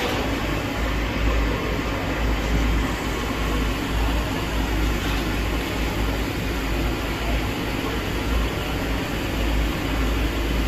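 Steady background noise with a deep, wavering rumble and an even hiss, and no distinct events.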